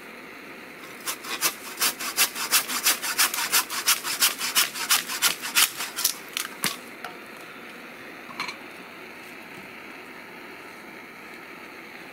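Rhythmic rasping strokes, about three or four a second, starting about a second in and stopping about seven seconds in, with a brief high tone a little later.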